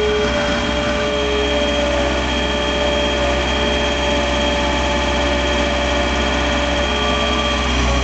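2006 John Deere 320 skid steer loader's diesel engine running steadily under load while pushing snow, heard from the operator's cab, with a steady whine over the engine note.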